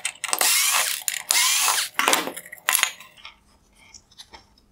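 Cordless electric screwdriver with a T10 Torx bit running in several short bursts, its motor whine rising in pitch as each burst spins up, while it backs out small screws. In the last second or so there are only a few light clicks and taps.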